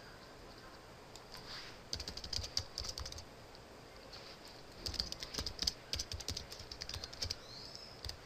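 Computer keyboard typing: a quick run of keystrokes about two seconds in, a pause, then a longer run from about five seconds to past seven, with one last keystroke near the end.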